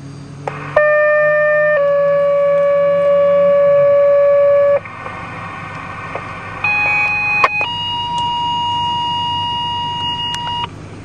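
Two-tone sequential paging alert from a fire and ambulance radio dispatch, heard over a radio: a one-second steady beep stepping to a slightly lower three-second tone, then after a short pause a second pair, a one-second tone stepping to a three-second tone. These tones page the fire department and ambulance crew to a call.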